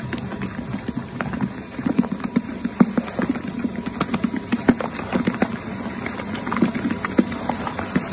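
Electric mochi-making machine kneading and pounding steamed glutinous rice: the dough ball thuds and slaps against the bowl in an uneven rhythm of a few knocks a second over the steady hum of the motor.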